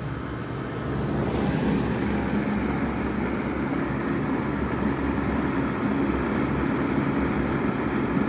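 1995 Bard 3-ton wall-hung heat pump running during its defrost cycle, a steady low mechanical hum and rumble that grows louder about a second in and then holds steady.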